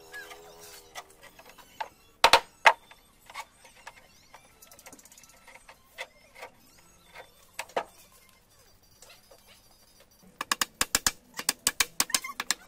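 Scattered knocks and taps of wood and tools, with two sharp knocks about two seconds in; from about ten seconds in, a fast run of hammer blows on wood, several a second.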